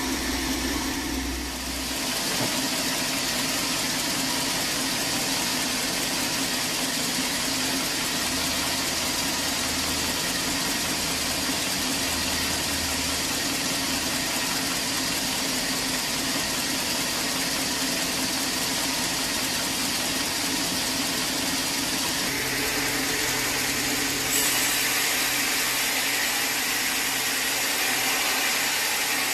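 Sawmill machinery running steadily: a constant mechanical drone with a dense hiss. Its tone shifts about 22 seconds in, and it gets slightly louder a couple of seconds later.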